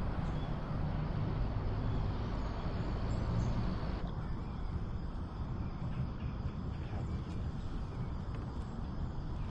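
Steady low outdoor background rumble with no distinct events; the higher hiss drops slightly about four seconds in.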